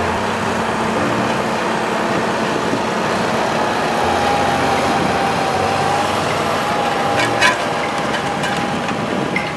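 Fendt 724 Vario tractor's six-cylinder diesel running steadily under load while pulling a Horsch stubble cultivator through the soil, with a steady whine over the engine noise and a short clatter about seven seconds in.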